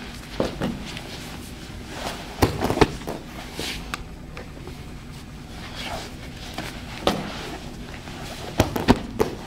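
Two grapplers rolling and landing on training mats during a guard sweep: scattered dull thumps and scuffs of bodies and clothing on the mat, the loudest about two and a half seconds in and again near the end.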